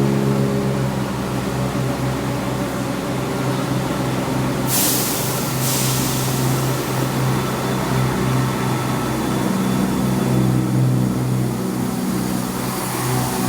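Passenger train standing at the platform with a steady low hum, and a short hiss of air about five seconds in.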